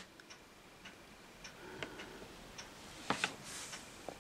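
Faint handling sounds of a comic book in a plastic sleeve being moved and stood up on a table: scattered light clicks, with a short cluster of clicks and a brief crinkly rustle about three seconds in.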